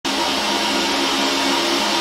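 Fiber laser engraver running while marking a steel hammer head: a steady fan-like whir with a low hum and a faint higher tone.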